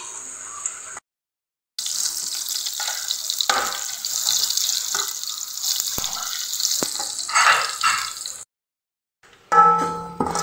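Food sizzling steadily in oil in an aluminium pot while a slotted metal spoon stirs it. The spoon gives a few sharp taps, and near the end it clatters and rings against the pot.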